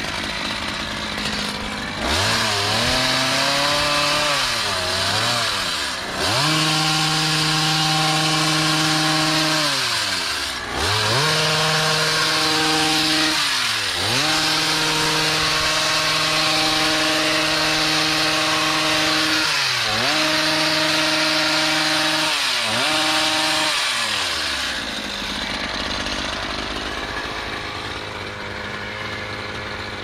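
Stihl HS56C hedge trimmer's small two-stroke engine revving up from idle and held at full throttle in long runs of several seconds, with brief dips between, as its blades cut through the shrub. It drops back to idle near the end.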